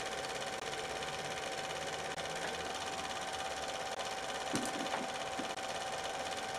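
Film projector running: a steady mechanical whir with a constant pitched hum, and a couple of short clicks about two-thirds of the way through.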